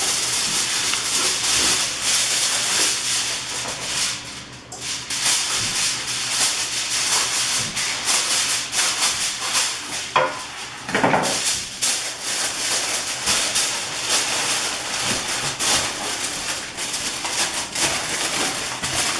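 Aluminium foil crinkling and rustling as it is pulled from the roll and pressed over a roasting pan. A sheet is torn off against the box's serrated cutting edge about ten seconds in.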